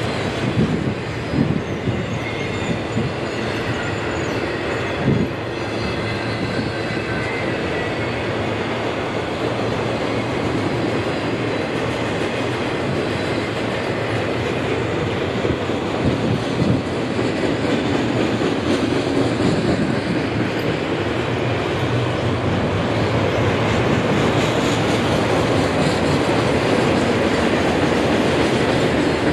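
Autorack cars of a CSX freight train rolling past close by: a steady rumble of steel wheels on rail, with a few sharp clunks over rail joints and faint wheel squeal in the first several seconds.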